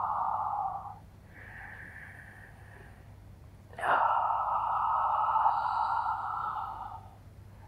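A woman's slow, deep Pilates breaths, picked up close on a clip-on microphone. A long breath fades out about a second in and a quieter one follows. A long, louder breath starts about four seconds in and lasts about three seconds.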